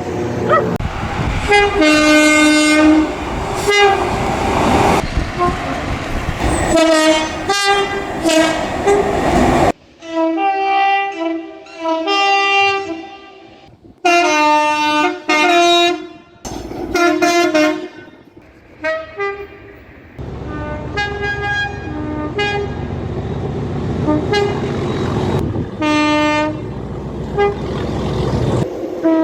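Train horns sounding a run of loud, chord-like blasts, short and long, from several clips cut together with abrupt changes. A low rumble of a moving train runs beneath the later blasts.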